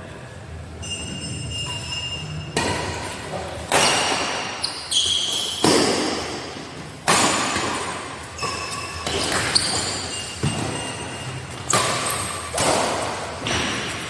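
Badminton rally in a hall: a dozen or so sharp racket hits on a shuttlecock, roughly one a second, each ringing on in the room, with short high squeaks in between.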